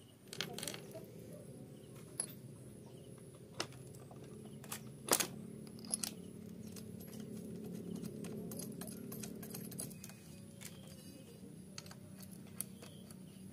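Scattered small metallic clicks and taps of a hex key and bolts on a brush cutter's aluminium clutch housing as the shaft mount is fastened, with a faint low hum in the background that swells in the middle.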